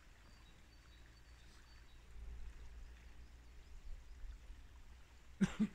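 Faint water sloshing and splashing in a marshy pond, over a low steady rumble. Near the end come two short vocal sounds.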